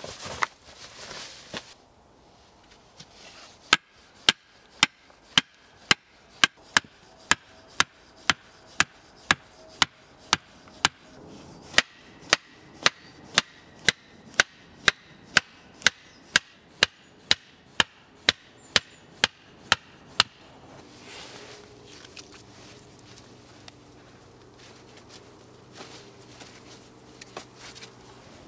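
Hammer driving pointed wooden stakes into the ground, sharp wooden knocks at a steady pace of about two strikes a second for some sixteen seconds. After the strikes stop, a faint steady low hum with several pitches.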